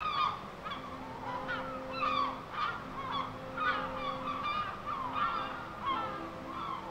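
A flock of birds calling over one another, a steady stream of short, downward-bending honking calls. A faint low steady hum runs underneath.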